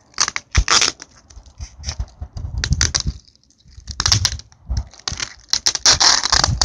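Hands handling a taped foam-board model wing, with irregular bursts of rustling, scraping and tape crinkling and a few dull bumps as the wing is pressed and folded at its taped joint.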